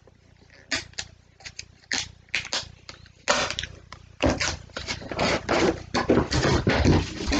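Cardboard packaging being opened by hand: a few short sharp clicks and tearing sounds, then from about four seconds in a louder, continuous scraping and rustling as the cardboard top slides up off the box.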